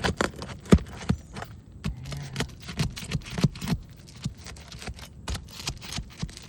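Irregular clicks and knocks of a metal shingle-removal tool (a roof snake) working against and under asphalt roof shingles while unsealing them.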